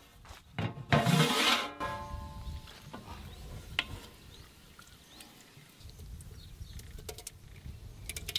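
Large aluminium cooking pot's lid lifted off, clanking and scraping with a short metallic ring about a second in, followed by faint sounds of a wooden spatula stirring thick mince curry in the pot.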